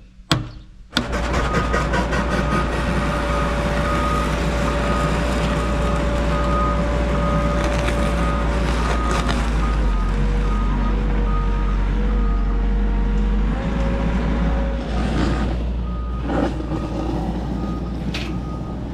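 A hammer blow right at the start. Then a construction machine's diesel engine runs steadily, with its reversing alarm beeping over and over.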